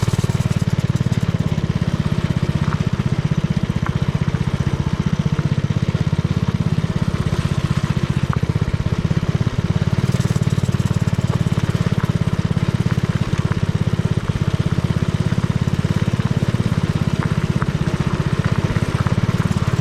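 Mini trike's small single-cylinder engine running steadily under way, a fast even putter that holds at about the same speed throughout.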